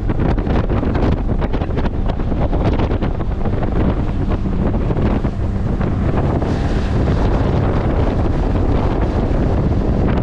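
Wind buffeting the microphone on a 1998 Ranger bass boat running at speed, with the outboard motor's steady drone and water rushing past the hull underneath.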